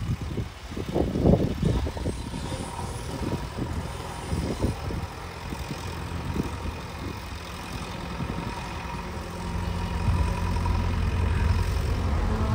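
A motor vehicle's engine running steadily, growing louder about ten seconds in, with irregular low rumbles in the first couple of seconds.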